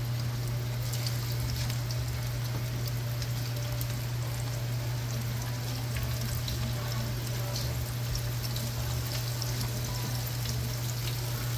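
Pieces of parboiled saltfish sizzling in hot oil in a nonstick frying pan, a steady hiss full of small crackles and pops, over a steady low hum.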